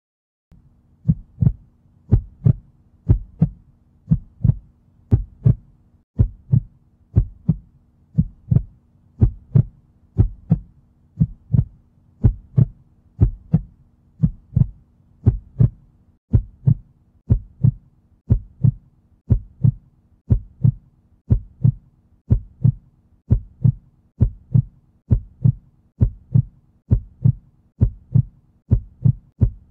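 Heartbeat sound: steady double thumps (lub-dub), about one beat a second, starting about a second in, over a faint low hum.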